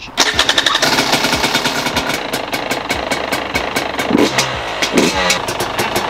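Two-stroke dirt bike engine starting and running, with a sudden start just after the beginning and then a steady, rapid pulsing.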